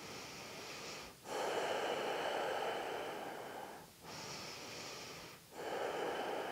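A person's slow, deep breathing, two breaths in a row, each a short, softer breath followed by a longer, louder one with short pauses between.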